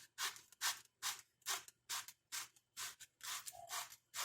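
Sandpaper being rubbed by hand over the splines of a plastic cog, in steady back-and-forth strokes about two a second, a few with a short squeak, to take them down until the part slides in.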